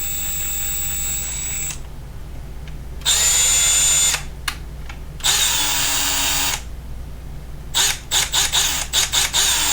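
Milwaukee M12 Fuel 3/8-inch right angle impact wrench spinning free in reverse with no load, run three times on the trigger: a high motor whine lasting about a second and a half, then about a second, then a little over a second, the middle run winding down in pitch as it is let go. A series of quick clicks follows near the end.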